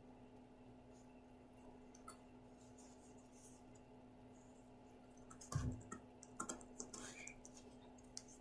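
Quiet handling of paper craft pieces on a wooden tabletop: a knock against the table about five and a half seconds in, then a scatter of light clicks and taps over the next two seconds.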